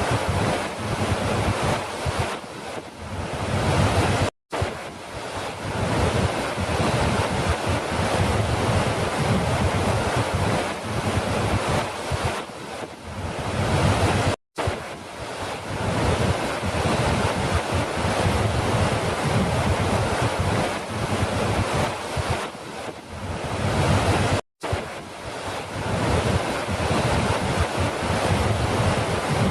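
Falling water rushing steadily, an even loud hiss over a low rumble. The sound cuts out for a split second three times, about ten seconds apart, where a short recording loops back on itself.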